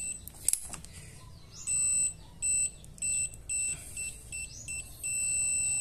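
Digital torque wrench beeping as a cylinder head bolt is tightened: a series of short electronic beeps about every half second, then one long steady beep near the end, the wrench's signal that the set torque of 28 N·m has been reached.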